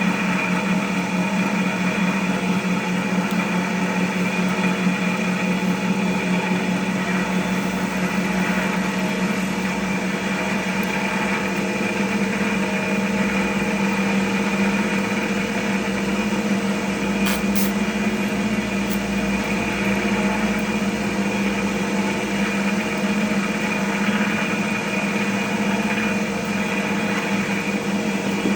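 Cotton candy machine's electric motor running at a steady speed, spinning the head with an even hum, with a brief click about two-thirds of the way through.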